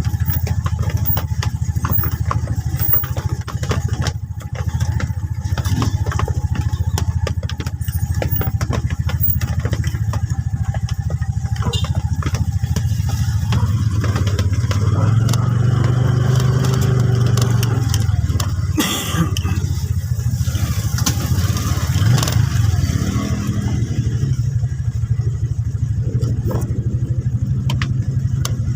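Vehicle engine running steadily with a low hum, growing louder for a few seconds around the middle.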